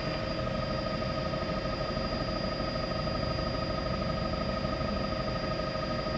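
Steady drone of a news helicopter heard from inside the cabin, with several constant whining tones over an even rushing noise.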